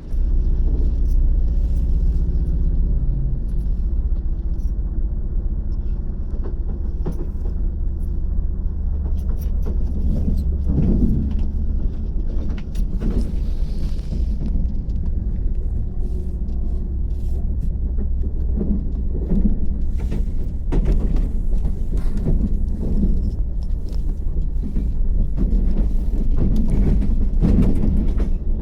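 Train running, heard from inside a carriage: a steady low rumble with a constant hum, and irregular clicks and rattles throughout.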